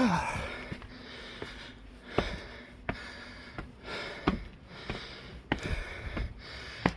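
Footsteps on pavement at a steady walking pace, about one sharp step every 0.7 seconds, over the faint rustle of breathing and air at a handheld microphone. A brief falling sound opens the stretch, the loudest moment.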